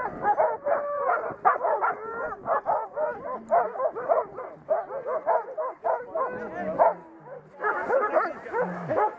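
A team of harnessed sled dogs barking and yipping, many dogs at once in a dense, overlapping clamour, with a brief lull about seven seconds in.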